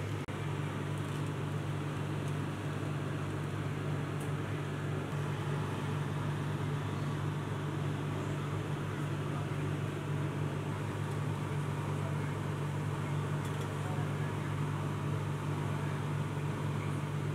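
Steady mechanical drone of a commercial kitchen, a fan-like rush over a constant low hum.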